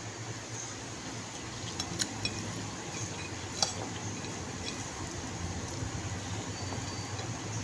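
Eating a chicken by hand: a few soft clicks and clinks against the plate, the sharpest a little past three and a half seconds in, with faint chewing over a steady low hum.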